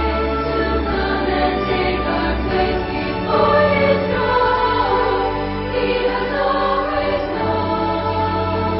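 Music with a choir singing held notes.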